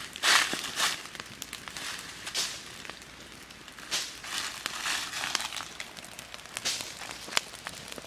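Small wood fire of sticks burning on dry leaves, crackling with a few sharp pops, mixed with footsteps rustling and crunching through dry leaf litter.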